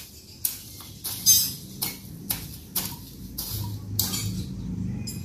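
Scratchy strokes on dirt ground, repeating about twice a second. A low hum comes in about three and a half seconds in.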